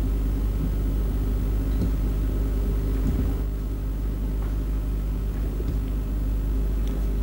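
A steady low hum and rumble, unchanging throughout, with a few faint clicks.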